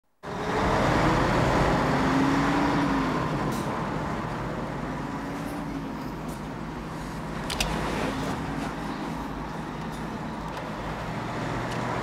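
Steady engine and tyre hum of a moving car, heard from inside the cabin, loudest over the first few seconds, with a short sharp click about seven and a half seconds in.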